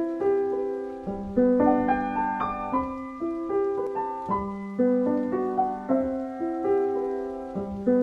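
Intro music: a piano playing a quick succession of notes, each struck note fading away.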